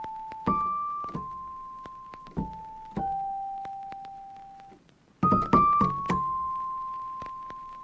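Background music: a slow, sparse piano melody, single notes struck and left to ring and fade, with a short gap about five seconds in before a quick run of notes and one long held note.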